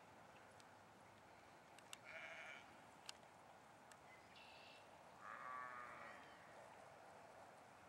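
Sheep bleating faintly: one bleat about two seconds in, a short higher one past four seconds, and a longer wavering bleat just after five seconds, over a steady faint hiss. A sharp click sounds about three seconds in.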